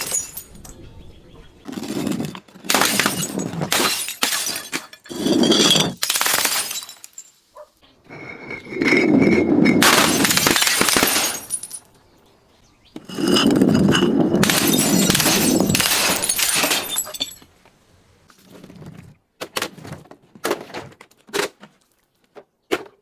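Glass bottles being broken and crushed: a run of shattering, crunching bursts, with two long grinding crunches of several seconds near the middle, then a few small clinks of settling shards near the end.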